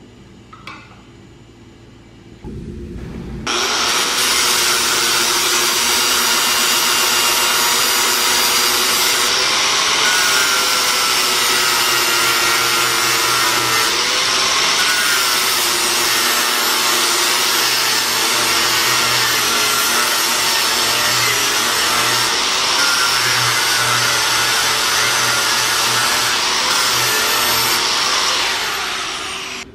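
Electric angle grinder with an abrasive disc starting up about two and a half seconds in and running steadily, its pitch dipping now and then under load as it works on steel angle-iron brackets, then shutting off near the end.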